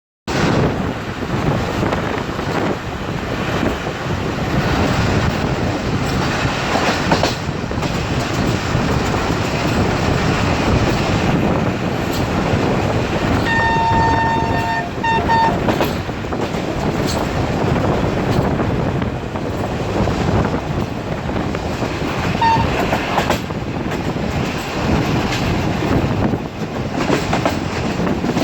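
Sir Syed Express, a Pakistan Railways express train, running fast, with a steady rumble and wheels clattering over the rail joints. About fourteen seconds in, a train horn sounds for a second and a half, breaking once before a short final note.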